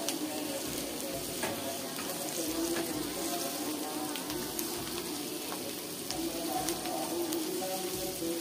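Sliced onions and ginger-garlic paste sizzling steadily in hot oil in a nonstick pan, stirred with a wooden spatula, with occasional light ticks of the spatula against the pan.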